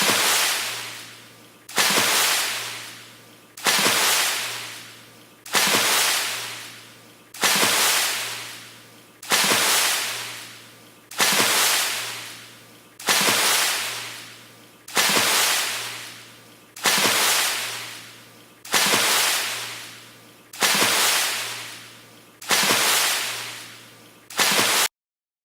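A water splash sound effect repeating on a loop, about one sharp splash every two seconds, each trailing off in a spray-like hiss. Near the end, one splash is cut off abruptly and the sound stops.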